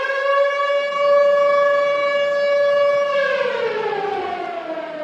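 Air-raid siren wailing: one long steady tone that begins to wind down, falling slowly in pitch, a little after three seconds in.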